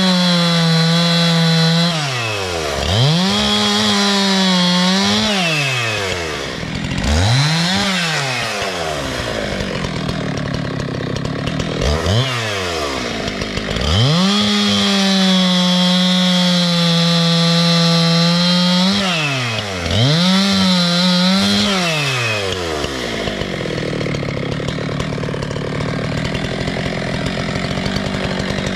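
Two-stroke chainsaw cutting wood: the engine is held at full throttle in several stretches, dropping back and revving up again between them, then settles to idle near the end.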